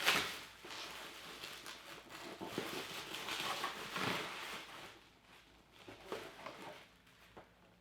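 Hands rustling and scraping cardboard and plastic packaging while unpacking a boxed Funko Pop vinyl figure, with a sharp knock at the start; the handling grows quieter after about five seconds.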